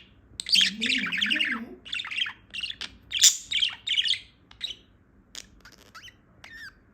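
Female budgerigar chirping and chattering in quick warbling strings, busiest over the first four seconds, then thinning to scattered short chirps and clicks near the end.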